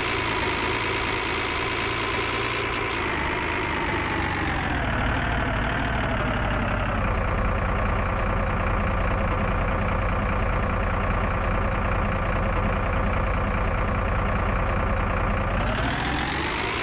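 Vehicle engine running steadily, then dropping to a low idle over a few seconds and revving back up near the end.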